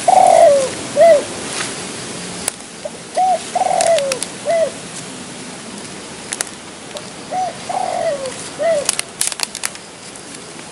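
Spotted dove (tekukur) cooing: a three-note phrase of a short coo, a longer falling coo and another short coo, repeated three times about four seconds apart. A few faint sharp clicks fall between the phrases.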